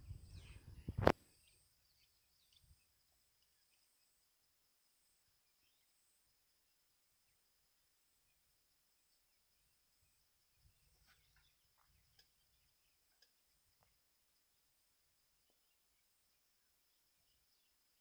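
Wind rumble and handling noise on the microphone for about the first second, ending in a sharp click. Then near silence, with a faint steady high-pitched whine and faint short chirps repeating above it.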